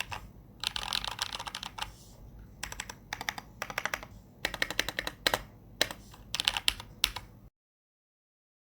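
Typing on a mechanical keyboard with lubed Invyr Holy Panda tactile switches on a brass plate in an aluminium case, with PBT keycaps: fast runs of key clacks in bursts with short pauses. The sound cuts off suddenly near the end.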